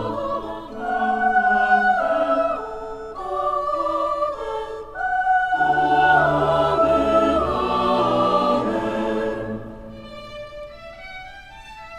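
Choir singing held chords with orchestra. About ten seconds in the singing ends and the music drops to a quieter instrumental passage of stepping notes.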